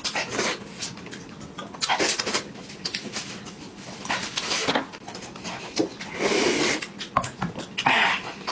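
Close-up eating sounds: chewing and mouth smacks while handling food, with many sharp clicks and several short noisy bursts.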